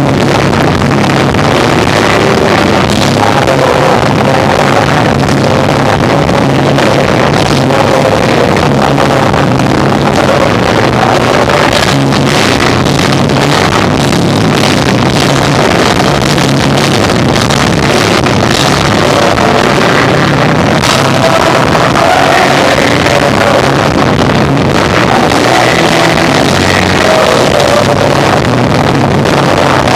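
Live rock band playing loud and continuous, with electric guitar, bass and drums, in a poor, overloaded recording.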